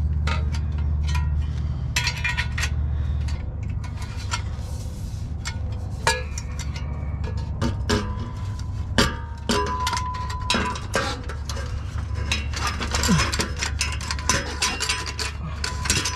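Metal exhaust pipe sections clinking and scraping as they are slid together and pushed up into place under the truck, with many short, irregular metallic clinks over a steady low hum.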